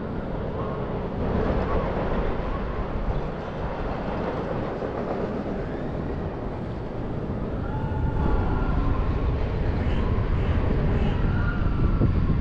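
Wind rushing over the microphone of a camera carried on a fairground thrill ride, with a low rumble that grows louder about eight seconds in.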